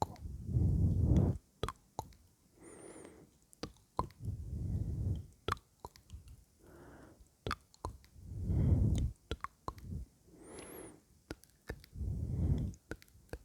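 Close-miked ASMR mouth sounds: wet clicks and lip smacks scattered throughout, with slow breaths into the microphone. Strong low gusts of exhale alternate with softer inhales, about four breath cycles in all.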